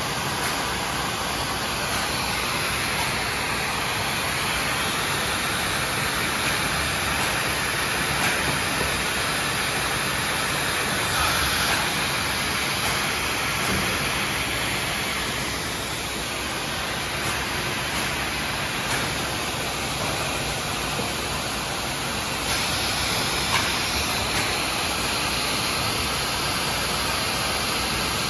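CNT Motion Systems CNC router running a cutting job on stair stringers, its spindle and dust-extraction suction making a steady rushing noise with small swells.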